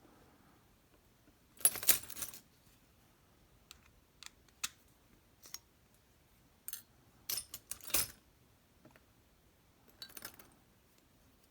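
Small metal clicks and clinks from tiny lock pins and a tool being handled while a dimple lock is taken apart, with scattered taps between clusters near two seconds, around seven to eight seconds and near ten seconds.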